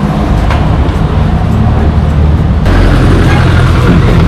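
Road traffic noise from the street outside, then, after an abrupt change about two and a half seconds in, the louder steady engine and wind noise of a Yamaha NMAX scooter being ridden along the road.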